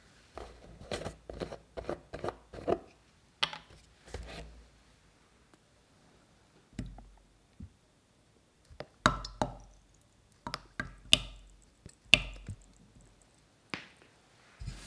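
A carton of whipping cream being handled and opened: a quick run of knocks and taps, then a couple of separate clicks. About nine seconds in, cream glugs out of the carton in a handful of sharp spurts as it is poured into milk in a saucepan.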